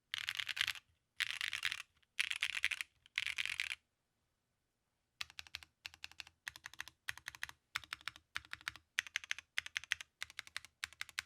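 Typing on a Calice custom mechanical keyboard with Techno Violet linear switches on a polypropylene plate. There are four quick, dense flurries of keystrokes, a pause of about a second and a half, then short even bursts of a few keystrokes about twice a second.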